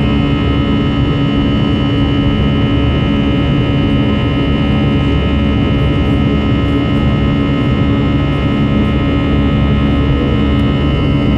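Airbus A320 jet engines heard from inside the cabin at climb power just after takeoff: a steady roar with several steady tones riding above it.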